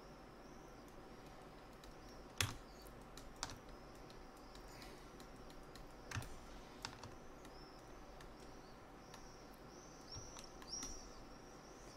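A handful of sparse, short computer mouse and keyboard clicks over a faint steady hiss, the loudest click about two and a half seconds in.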